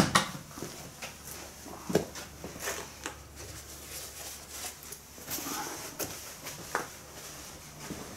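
Irregular light clicks and knocks of tools and metal parts being handled on a workbench, the sharpest right at the start.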